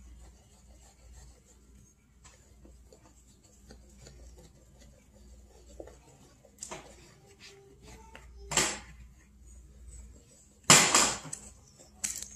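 Wooden spoon stirring pancake batter in a plastic mixing bowl: faint scraping, with a few louder scrapes and knocks of the spoon against the bowl, one about two-thirds through and the loudest cluster near the end.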